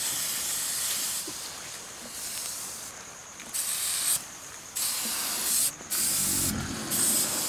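A high hiss, steady at first and then coming in several short stop-start bursts in the second half.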